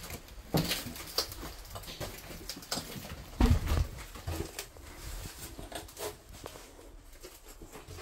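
Footsteps sloshing through shallow floodwater on a hard floor, a step about every half second to second, with a heavier thud about three and a half seconds in.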